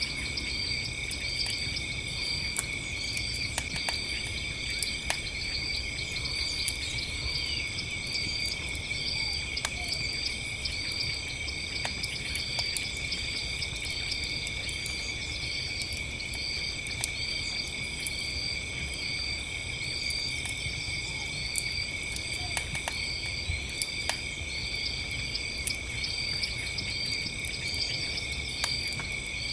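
Crickets chirping steadily, with a repeating trill pattern, over sparse sharp crackles and pops from a campfire.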